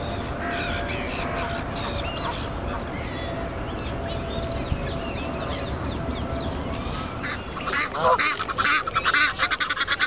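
Geese and ducks calling in a park. Faint calls sound over a steady low rumble at first, then from about three-quarters of the way in comes loud, rapid, close honking and quacking.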